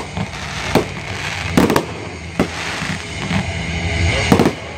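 Fireworks display: fans of comets and shells launching and bursting, with a crackling hiss throughout. Several sharp bangs come through it, about a second in, near two seconds and again near the end.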